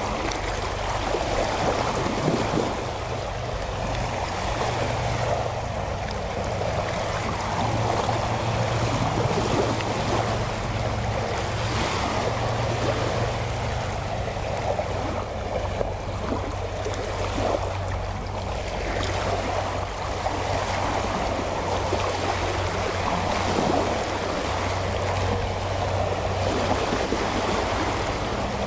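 Small sea waves lapping and washing steadily on the shore, with a low steady drone underneath from a distant motorboat engine.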